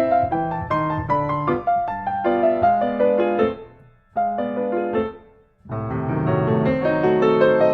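Background piano music, a flowing line of notes over chords, which drops almost to silence about four seconds in, comes back briefly, drops out again and then resumes.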